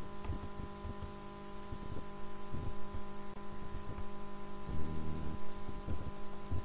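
A steady low hum with a few fixed tones, under irregular soft low thumps and a brief low throb about five seconds in.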